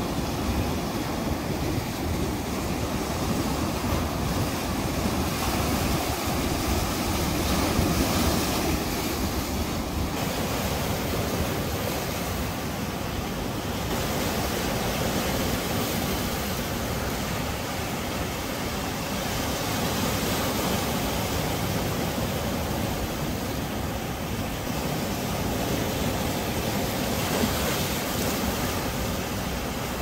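Sea waves breaking and washing over shoreline rocks: a continuous rush of surf that swells and eases as each wave comes in.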